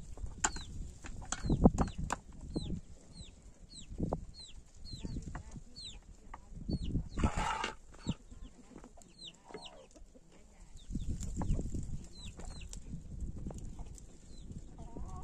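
Chickens peeping and clucking: a steady run of short, high, falling peeps, several a second, with a louder harsh noisy call about seven seconds in. Low thumps and rustling run underneath, the loudest about one and a half seconds in.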